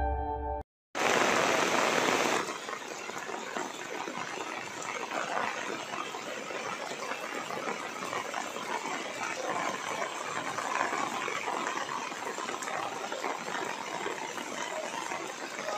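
Rain falling steadily on a wet stone-paved plaza, an even hiss, louder for about the first second and a half and then settling.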